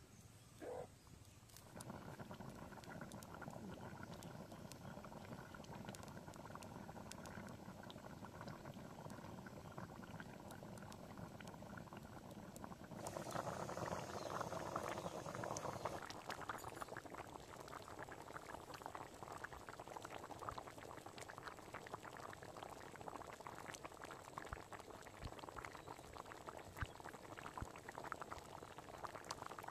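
Curry bubbling at a rolling boil in an aluminium pan over a wood-fired clay stove, a steady dense bubbling that grows louder for a few seconds about halfway through.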